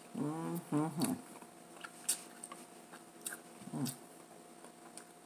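A person chewing food with wet mouth clicks and lip smacks. Two short hummed sounds come in the first second, and a shorter one a little before four seconds in.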